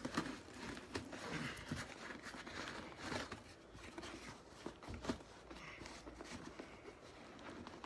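Hands handling a large cardboard box, scraping and rubbing against the cardboard and its packing straps, with scattered small knocks and clicks as the box is shifted and turned.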